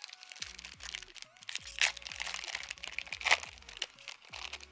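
Foil Pokémon booster pack wrapper being torn open and crinkled by hand, with two sharp loud rips, one about two seconds in and one about a second later.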